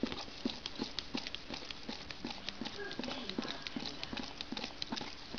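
Two Labradors licking out a small dessert pot together: a quick, irregular run of wet tongue clicks and smacks against the pot, several a second.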